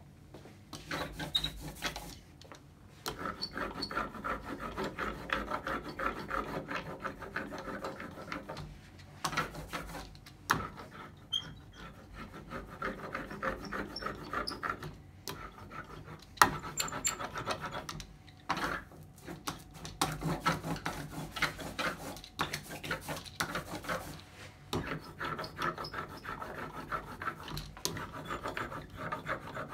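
Rubber ink brayer rolled back and forth over a carved wooden relief, inking its surface: a steady rubbing rasp in strokes, with short pauses where the roller is lifted.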